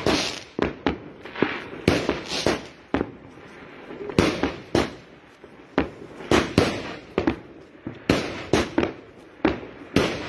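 Fireworks going off in a rapid, irregular series of sharp bangs, about two a second, each followed by a brief echoing tail.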